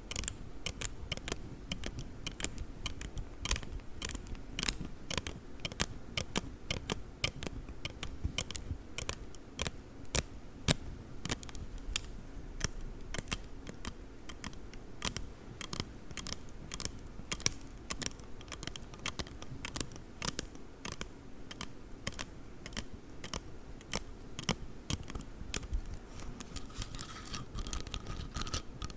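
Folding ruler handled close to the microphone: rapid, irregular clicks and taps.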